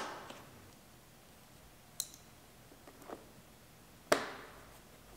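Sharp plastic snaps and clicks as parking-sensor parts and harness clips are pushed into a plastic bumper cover: a loud snap at the start and another about four seconds in, each ringing briefly in the hollow cover, with two quieter clicks between.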